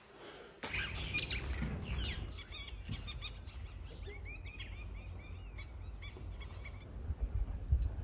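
Wild birds calling in the bush: a few falling whistled calls, then a rapid run of short repeated chirps, several a second.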